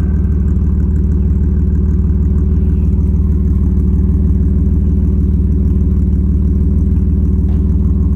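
1965 Austin-Healey 3000 Mk III BJ8's straight-six idling steadily at the twin exhaust tips, moments after a cold start.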